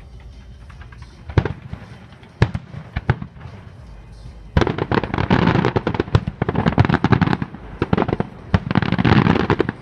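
Fireworks going off: a few separate bangs, then from about halfway a dense run of rapid bangs and crackling that keeps going.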